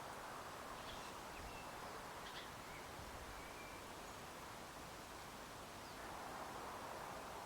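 Quiet outdoor ambience: a steady low hiss with a few faint, short bird chirps and thin whistles in the first half.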